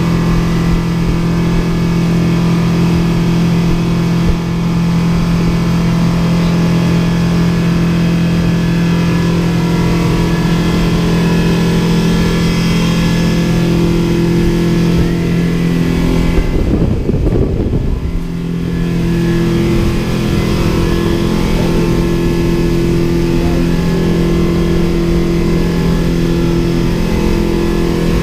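Speedboat outboard engines running steadily at cruising speed, a constant drone over rushing wind and water. About two-thirds of the way through, the engine note breaks for a second or two into a rough low rumble, then settles again.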